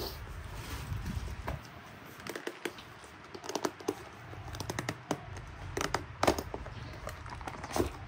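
Irregular light clicks and taps, some in quick little clusters, from a leather loafer being handled and turned over in the hands.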